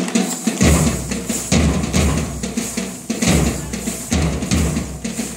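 Music driven by heavy drumming, with a strong, steady beat.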